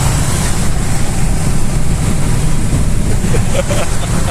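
Car driving at speed, heard from inside the cabin: a steady, loud rumble of engine, tyres and wind.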